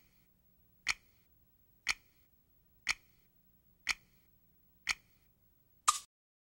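Countdown leader ticking: a short sharp tick once a second, five times, over a faint low hum. Near the end comes a louder, longer beep-like click, then the sound cuts off.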